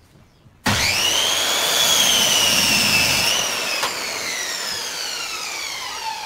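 An electric power tool's motor, heard but not seen, starting suddenly with a high whine that climbs, holds steady, then slowly winds down in pitch over the last few seconds.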